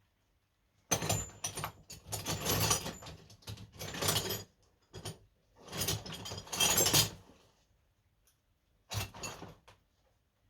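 Metal hand tools clinking and clattering in several bursts over about six seconds, then one more short burst near the end.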